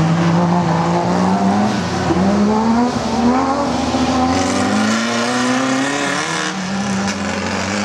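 Off-road race truck and race buggy engines pulling hard as they accelerate away along a dirt track. The engine pitch climbs, drops back and climbs again several times as they shift up through the gears, and the sound eases slightly toward the end as they move off.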